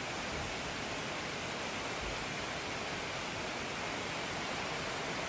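Fast-flowing floodwater rushing steadily: a constant, even noise of moving water.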